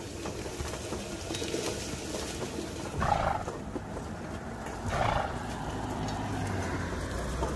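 A horse pulling a cart through tall weeds: stems brushing and swishing against the harness and cart over a steady low rumble of rolling. There are two short, louder whooshes, about three and five seconds in.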